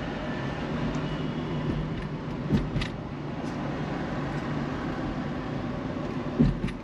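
Car driving along a road: steady engine and tyre noise with a low hum. Short thumps come about two and a half seconds in and again near the end.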